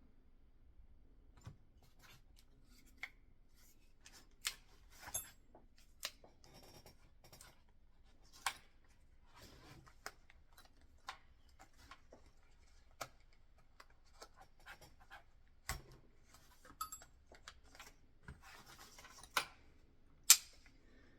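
Small metal parts of a pistol being handled and pried at during disassembly: scattered light clicks, taps and scraping, with one sharp, louder click near the end.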